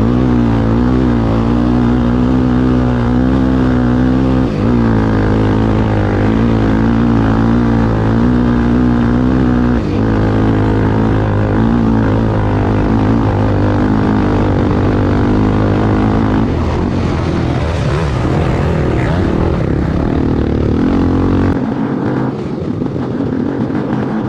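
Racing vehicle's engine running hard under load, its pitch wavering up and down, with two brief dips in level and a rougher, thinner sound in the last third.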